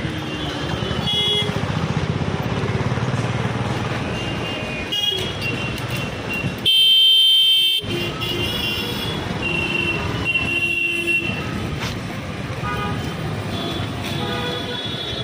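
Busy street traffic: vehicle engines running with several short horn toots, and one loud horn blast of about a second roughly seven seconds in.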